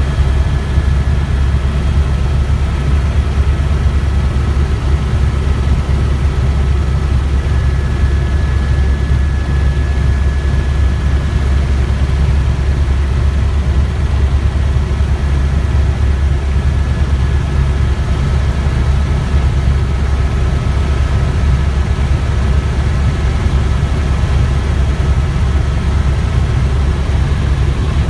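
Tour helicopter heard from inside the cabin in flight: a steady, loud, deep rotor and engine rumble with a faint high whine held above it.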